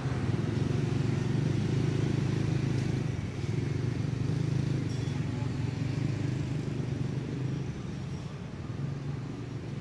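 Steady low hum of an engine running, a little quieter over the last couple of seconds.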